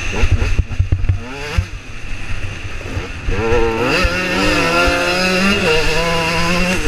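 KTM EXC 125 two-stroke enduro motorcycle engine running under riding, its pitch rising and falling with the throttle. It eases off about one and a half seconds in, then climbs back up at about three seconds and holds high revs. Rumbling wind and bumps on the microphone run underneath, heaviest in the first couple of seconds.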